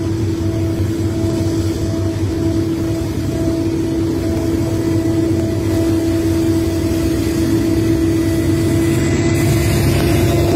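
Diesel freight locomotives approaching and passing close, their engines running with a steady drone and a held hum, growing a little louder in the second half.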